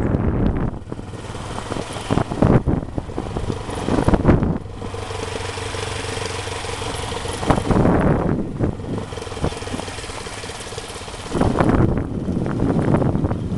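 Motorcycle engine running at a steady speed while riding, its hum clearest in the middle, with loud gusts of wind buffeting the microphone at the start, about halfway through and near the end.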